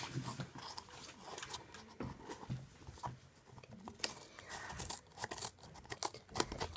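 Scissors cutting open a small cardboard blind box: irregular snips, blade clicks and scrapes of paper and cardboard, busier from about four seconds in.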